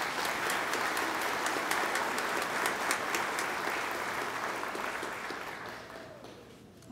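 Audience applauding, steady at first, then fading away over the last couple of seconds.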